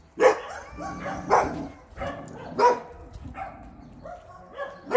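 Dog barking: four loud barks one to two seconds apart, with fainter calls between them.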